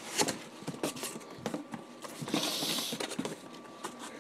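Cardboard boxes being handled: the shipping box's flaps pulled open and a hand knocking and rustling against the cardboard, with a brief scraping slide a little past halfway.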